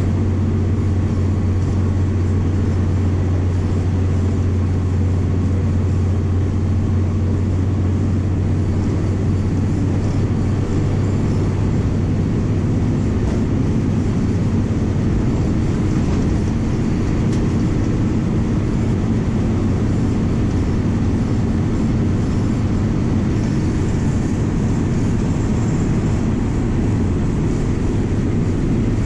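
MWM 6.12 TCE six-cylinder turbodiesel of a VW 17.230 EOD bus pulling at steady cruising speed, heard from inside the cabin together with road and wind noise. Its low, steady drone shifts slightly about ten seconds in.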